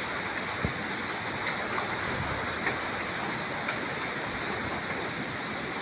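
Steady rush of typhoon rain and flowing floodwater: an even hiss of water with a few faint taps scattered through it.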